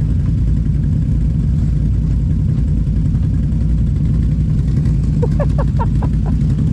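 Can-Am ATV engine running steadily under way, a low continuous rumble.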